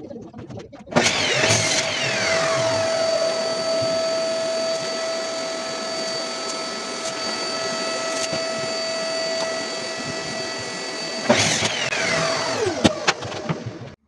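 A power tool's electric motor switches on about a second in and runs steadily with a constant whine, then shuts off near the end and winds down.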